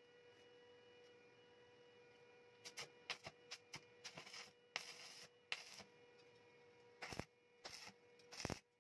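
Stick arc welder tacking a steel tube to a steel base plate: the arc crackles in a series of short, irregular bursts starting about three seconds in, each strike lasting a fraction of a second. A steady electrical hum runs underneath.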